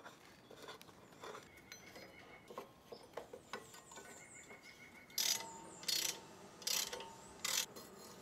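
Hand tools and metal bike parts being worked during reassembly: light scattered clicks and ticks, then four short rasping metal strokes in an even rhythm near the end, like a ratchet being swung or a metal pipe being slid into place.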